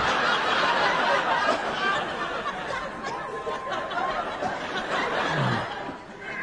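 Audience laughter, many people laughing together, easing off briefly near the end.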